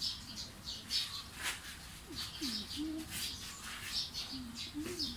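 Small birds chirping, many short high notes in quick succession, with a few low gliding notes underneath.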